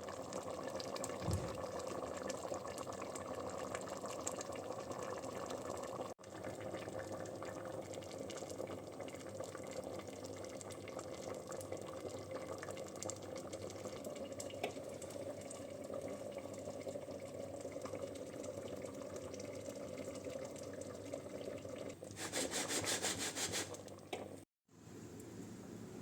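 Water running steadily from a tap into a sink, with a held pitch to the flow. It turns to a louder rush near the end.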